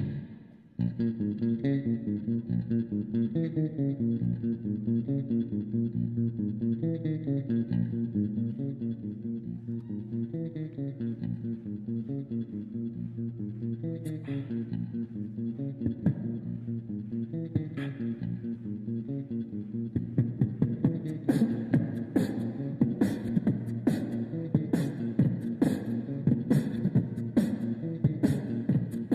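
Background music: a plucked bass and guitar line stepping through notes, joined about two-thirds of the way through by a steady percussive beat.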